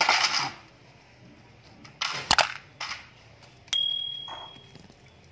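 Plastic toys being handled on artificial grass: a rustling clatter at the start, a few sharp knocks, then a single short ringing ding that fades over about a second.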